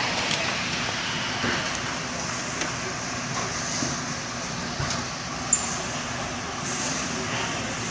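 Steady background noise of a busy warehouse, with a few faint knocks and one sharp click about five and a half seconds in.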